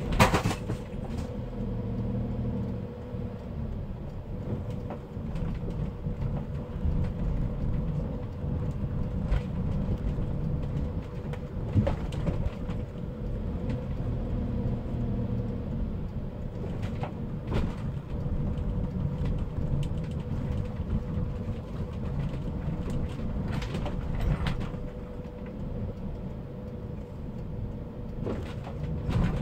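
Car driving through a concrete parking garage, heard from inside the cabin: a steady low rumble of engine and tyres with a faint steady hum. A few brief knocks come through now and then.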